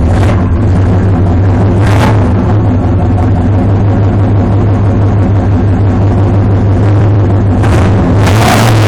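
Chevrolet Monte Carlo's engine idling loud and steady through its exhaust, with brief rushes of noise about two seconds in and again near the end.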